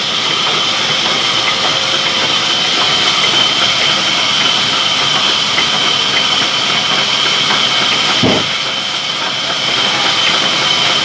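Sawmill saw machinery running steadily, a loud even noise with a constant high whine, with one dull thump a little after eight seconds.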